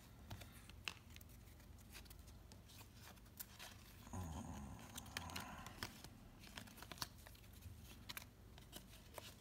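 Faint handling of a stack of 1993-94 Upper Deck basketball trading cards: stiff cardboard cards sliding and ticking against each other as they are flipped through by hand, a little louder for a couple of seconds about four seconds in.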